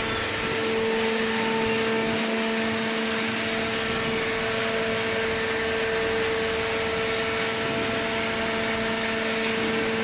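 Hydraulic power unit of an automatic horizontal carton baler running: a steady hum of the electric motor and hydraulic pump with a constant low whine, over an even hiss.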